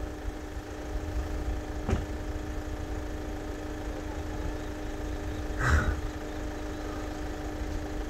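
A vehicle engine idling steadily with a low rumble and hum. There is a sharp knock about two seconds in and a short, louder clunk just before six seconds.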